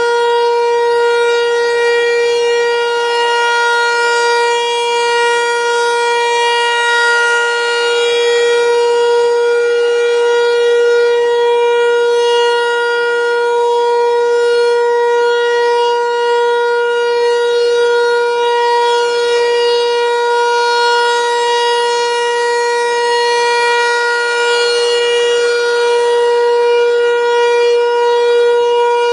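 American Signal T-128 rotating outdoor warning siren sounding its monthly test: one steady, unwavering tone that swells slightly in loudness without changing pitch.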